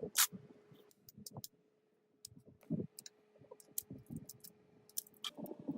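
Light, irregular metal clicks and a few soft knocks from hand work on tractor parts, over a faint steady hum.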